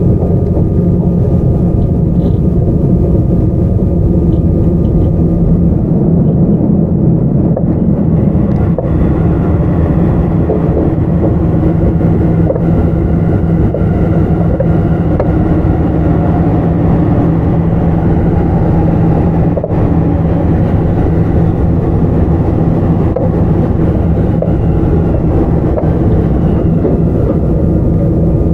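Sotetsu 9000 series electric train running along the line, heard from inside the car: a steady hum from the Hitachi IGBT-controlled traction motors and right-angle cardan gearing over continuous rolling and track noise.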